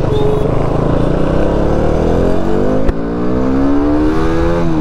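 Motorcycle engine accelerating as the bike pulls away: its pitch climbs, drops briefly with a click about three seconds in as the rider shifts gear, then climbs again, with a low wind rumble underneath.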